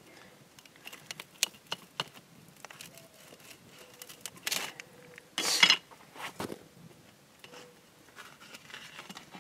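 A rocker pizza cutter pressing down through a pizza and scraping and knocking against a metal pizza pan, in a series of short scrapes and clicks; the loudest scrape comes about five and a half seconds in.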